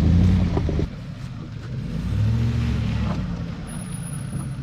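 Pickup truck engines running at crawling speed. A loud engine rumble drops off abruptly about a second in, and a quieter truck engine then revs up briefly and settles back.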